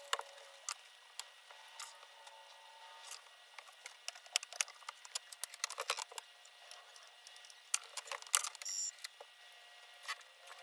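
Sped-up handling noise from a Pfaff Performance Icon sewing machine and tools on a workbench: a rapid scatter of plastic clicks and knocks as the machine is tipped onto its side and set back upright, busiest in the second half.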